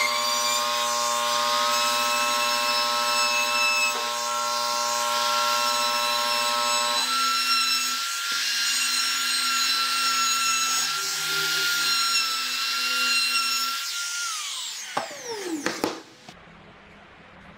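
Compact trim router running at high speed while routing the edges of a pine board, a steady high whine. Near the end it is switched off and winds down with a falling whine, followed by a few knocks.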